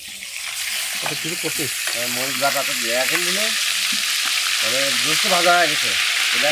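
Food poured into hot oil in an iron karahi, sizzling hard as soon as it hits the oil and building up over the first second, then frying steadily while a spoon stirs it.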